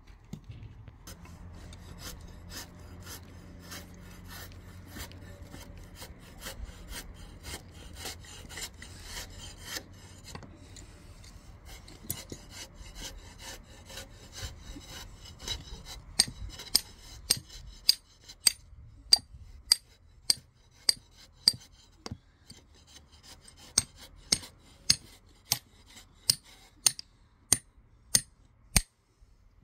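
Hand tools working wood: quick rasping strokes, scraping or sawing, over a low hum. About halfway through they give way to sharp, ringing knocks, about three every two seconds.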